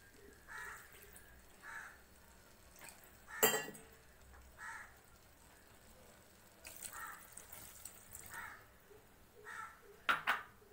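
Water poured into an aluminium pressure cooker of rice and vegetables, with one sharp metal clink a few seconds in and a few lighter clinks near the end. Faint bird calls repeat every second or two.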